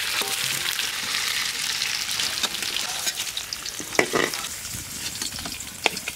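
Hot oil sizzling in a wok as fried paneer cubes are lifted out with a metal spatula. A few sharp metal clinks come about four seconds in and once near the end.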